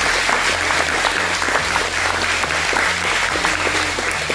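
A small group of people applauding, with steady, dense clapping.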